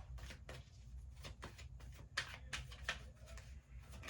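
Tarot cards being shuffled and handled by hand: a string of short, irregular card flicks and snaps, with a low steady hum underneath.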